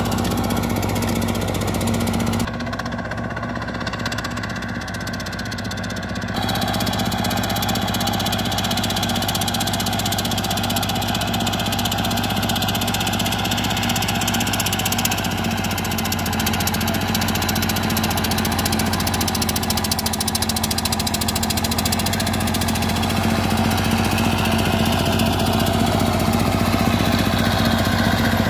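Two-wheel walking tractor's single-cylinder diesel engine running steadily as it tills a flooded paddy, dipping lower for a few seconds early on and growing louder near the end as it draws close.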